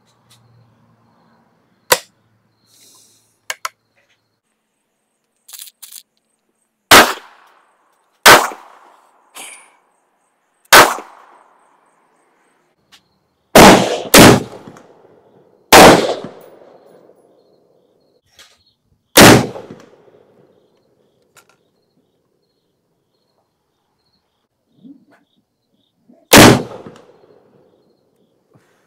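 Gunshots on a rifle range: about nine sharp, loud reports at uneven intervals, two of them half a second apart, with fainter pops in between, from other guns on the line. Near the end a .71 caliber Austrian M1849 muzzle-loading rifle fires once, leaving a cloud of black-powder smoke.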